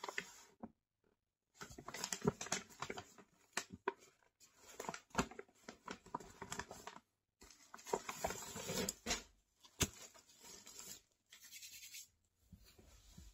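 Plastic mailer bag crinkling and rustling as it is handled, in two long stretches of dense crackle with a short break between them, then quieter handling near the end.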